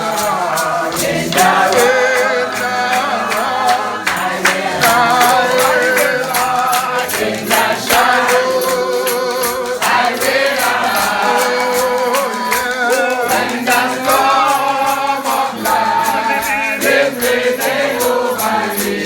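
A congregation singing a hymn together in unison, with a steady rhythmic percussion beat that sounds like a tambourine or shaker.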